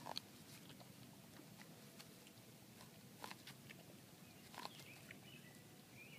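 Dog ripping and chewing the husks off an ear of corn: faint crackling husk-tearing and crunching, with a few sharper crackles, one at the start and others about three and four and a half seconds in.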